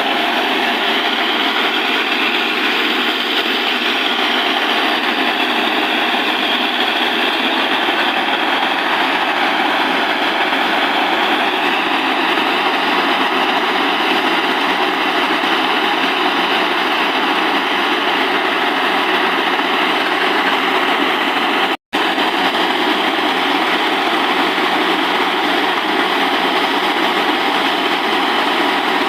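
Borewell drilling rig running steadily: a loud, even engine and machinery noise. It cuts out for an instant about twenty-two seconds in.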